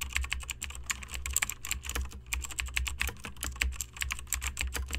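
Typing sound effect: rapid, irregular keyboard clicks, several a second, over a low hum, keeping time with caption text being typed out on screen.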